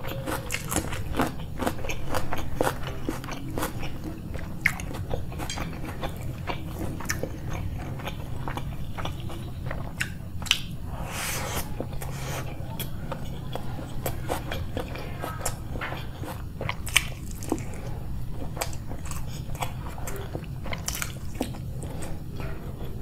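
A person eating egg biryani with raw onion and chilli close to the microphone: steady chewing and biting broken by many sharp crunches, with a longer, denser crunch about 11 seconds in.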